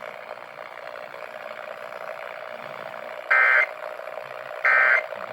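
Emergency Alert System end-of-message data bursts over steady radio hiss: two short, shrill digital bursts about a second and a half apart, the EAS signal that marks the end of the test message.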